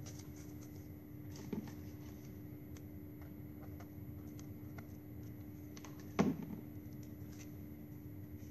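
Faint clicks and rustles of plastic drinking-straw pieces being handled and pushed onto a straw lotus flower, with a louder knock about six seconds in, over a steady low hum.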